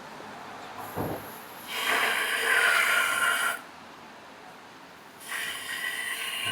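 A water tap turned on with a clunk, then water rushing and hissing from the tap through a hose adapter in two spells, the first about two seconds long and the second starting near the end.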